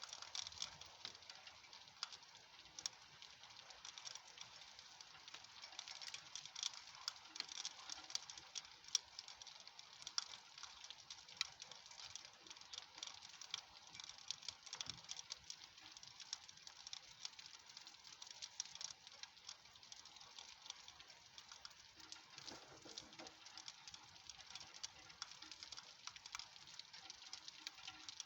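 Rain beginning to fall: a steady patter of raindrops, with many separate drop hits heard distinctly.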